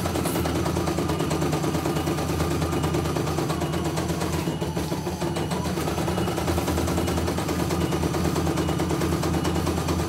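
CNY E900 computerised embroidery machine stitching out a design, its needle running in a fast, steady clatter.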